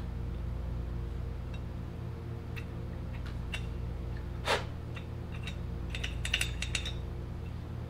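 Small metallic clicks and light rattles from an Autoloc electric door popper unit being handled and turned over in the hands, with a quick cluster of clicks near the end, over a steady low hum. One louder short noise comes about halfway through.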